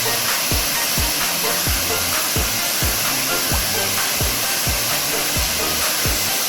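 Steady rush of a waterfall, with background music carrying a thudding kick-drum beat about twice a second.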